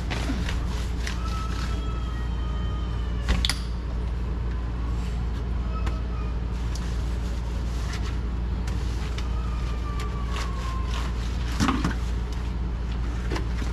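Wet sponge scrubbing a tiled sink floor, with a couple of knocks as the hand or sponge hits the tile, over a steady low hum. A few short whistling tones slide down in pitch now and then.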